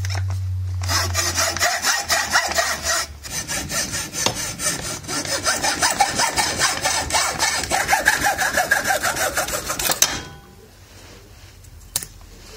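Hand hacksaw cutting through a small wooden block in rhythmic back-and-forth strokes, with a brief pause about three seconds in; the sawing stops about ten seconds in, followed by a single click near the end.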